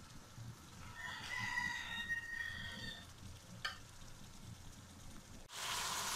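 A rooster crows faintly in the background, one call of about two seconds, over quiet stirring in a pan. Near the end, chicken frying in its released juices in an aluminium karahi cuts in abruptly with a loud sizzle.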